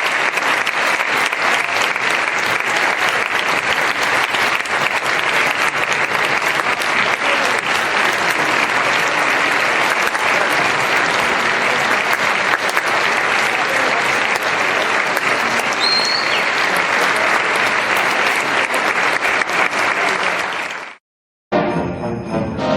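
A dense, steady crackling patter with the texture of applause. It cuts off suddenly near the end, and after a moment of silence music begins.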